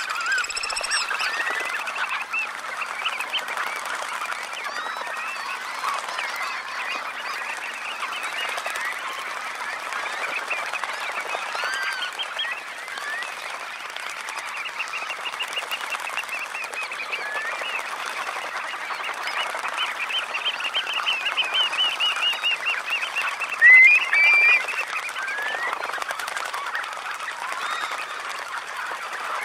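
A large flock of red knots bathing close up, their calls a dense continuous chatter, with a short high whistled call near the start and a louder pair of calls about 24 seconds in.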